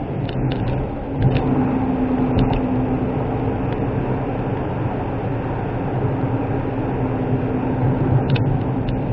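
Steady engine and road noise heard inside the cabin of a Suzuki Wagon R MH23S kei car cruising at an even speed. Its 660 cc three-cylinder engine hums under the tyre noise, with a few short, faint clicks along the way.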